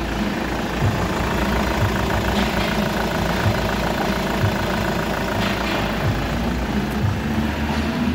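A Hyundai 2.5 CRDi four-cylinder turbo-diesel engine idling steadily with its usual diesel clatter, running evenly as an engine that tests good.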